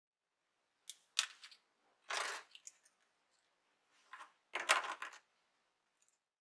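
Dry poplar leaves and a wooden clothespin being handled on a cutting mat: several short crackles and clicks, the loudest about two seconds in and about five seconds in.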